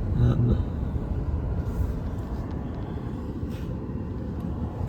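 Steady low rumble of a car driving, road and engine noise heard from inside the cabin, with a few faint ticks.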